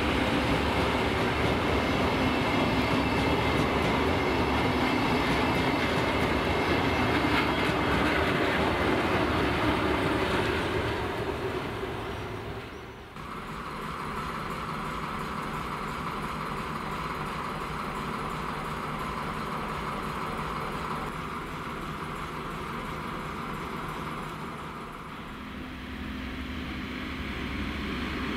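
A Lastochka ES1P electric train towed by a TEP70BS diesel locomotive rolls past, wheels clattering on the rails. About halfway through the sound cuts to a quieter, steady hum from a standing ChME3 shunting diesel locomotive. Near the end a new steady engine tone comes in as a TEP70BS diesel locomotive approaches.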